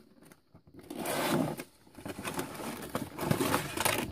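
Clear plastic blister tray and cardboard box rustling and crinkling as the tray is slid out of the figure's box, in two bouts: one about a second in and a longer one near the end.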